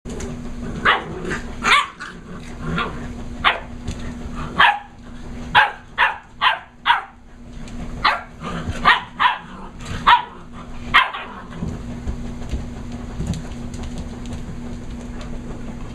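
German Shepherd puppies barking, a quick run of short high barks that stops about eleven seconds in, leaving a steady low hum.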